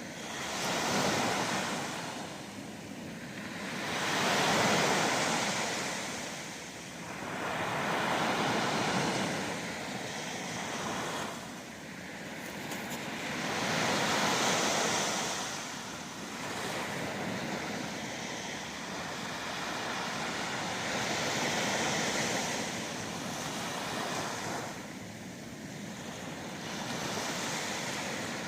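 Ocean surf: waves breaking and washing in, the sound swelling and falling away every few seconds.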